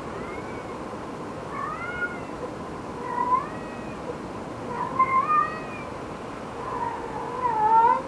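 A run of meow-like mewing calls from an unseen animal, each call bending up and down in pitch, the longest and loudest near the end, over a steady outdoor hiss.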